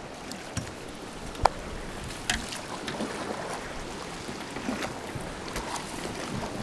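Rushing river water around an inflatable raft, with a few sharp knocks; the loudest knock comes about a second and a half in.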